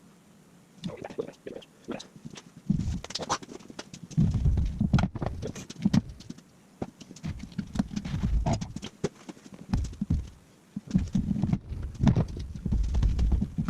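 Irregular knocks, thuds and rustling as someone handles and shifts about in a race seat.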